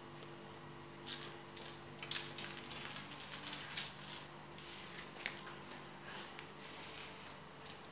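Kitten scuffling on a hard tile floor as it grabs and kicks a small toy mouse: irregular scratchy rustles and light taps of paws and claws, over a faint steady hum that fades partway through.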